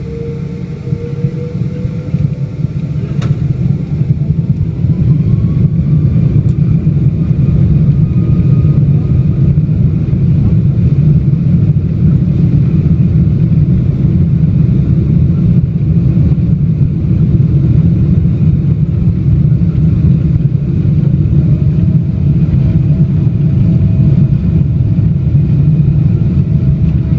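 Boeing 777-200 jet engines spooling up with a rising whine over the first few seconds, then a loud steady rumble as the airliner runs at high thrust, typical of a takeoff roll.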